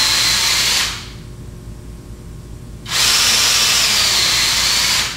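Cordless drill boring screw pilot holes, its motor whining at a steady high pitch. The first hole stops about a second in, and a second hole is drilled from about three seconds in until just before the end.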